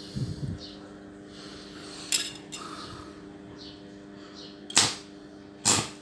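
Homemade arc welder built from four microwave oven transformers humming steadily while the welding electrode is struck against the metal, with a crackle near the start and three sharp cracks of the arc later on.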